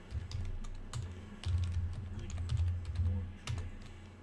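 Typing on a computer keyboard: quick, irregular runs of keystroke clicks with dull thuds from the keys bottoming out.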